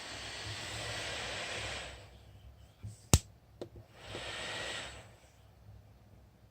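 A single sharp click from the laptop's plastic keyboard deck or case about three seconds in, the loudest sound, with a few fainter clicks around it. It sits between two stretches of soft hiss, the first about two seconds long and the second about one.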